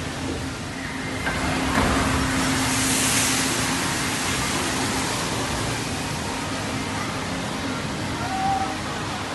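Rushing water of a log flume ride's channel. It swells into a loud splashing rush about two seconds in as a log boat surges through, then settles back to a steady rush over a low hum.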